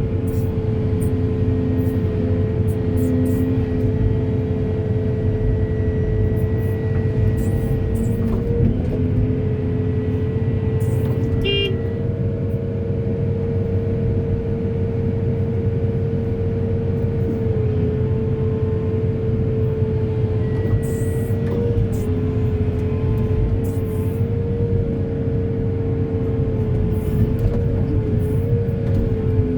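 Heavy diesel earthmoving machinery running steadily: a dense low engine rumble with a constant high whine over it that wavers slightly now and then.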